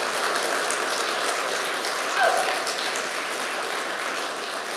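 Congregation applauding, a dense patter of clapping that slowly dies down, with one short call from a single voice about two seconds in.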